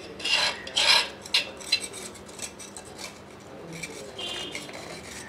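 A metal knife scraping around the inside wall of a steel pan, loosening a block of steamed egg from the sides: several loud rasping strokes in the first two seconds, then softer scrapes, with a brief metallic ring about four seconds in.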